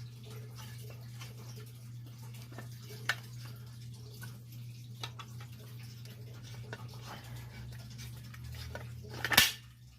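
Faint light clicks of a hex key and the metal pull station being handled, over a steady low hum, with one brief louder noise near the end.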